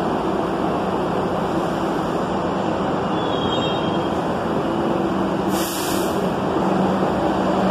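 R62 subway train pulling out of a station and picking up speed: a steady rumble of wheels and motors with a low hum, and a brief hiss about two-thirds of the way through.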